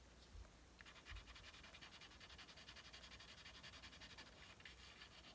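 Faint, quick scratching of a pastel pencil making short hatching strokes on paper, several strokes a second, starting about a second in.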